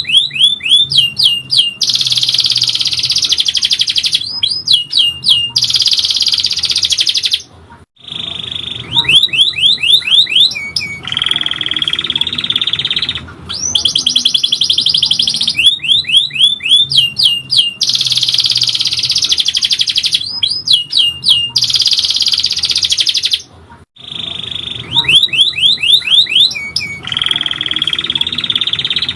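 Domestic canary singing a long song. Fast rolling trills alternate with runs of quick sweeping chirps, broken by short pauses, and the same phrase sequence repeats about every 16 seconds.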